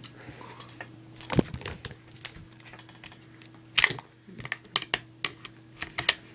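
Scattered sharp clicks and knocks of airsoft rifle parts being handled and fitted together during reassembly, the loudest a little before the four-second mark. A faint steady hum underneath.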